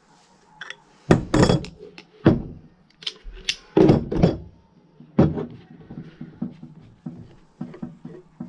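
Metal hand tools and a steel track rod knocked and set down on a workbench: a few heavy thunks in the first half, loudest about four seconds in, then lighter clicks and taps as the parts are handled.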